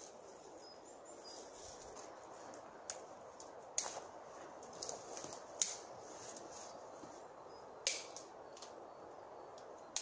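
A few sharp snaps of dry fern stems and twigs breaking, a second or two apart, over a steady outdoor hiss.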